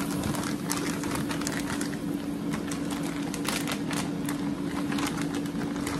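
Clear plastic food bag crinkling and crackling in short irregular bursts as it is handled, over a steady low hum.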